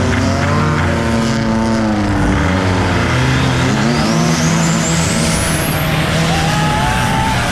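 Turbo diesel engine of a wooden longtail racing boat running loud and hard under way. A high whine climbs steadily in pitch from about three and a half seconds in until around six seconds.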